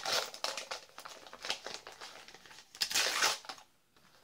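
Packaging crinkling and rustling as a taped-up parcel is pulled open by hand, in a few short bursts, the loudest about three seconds in.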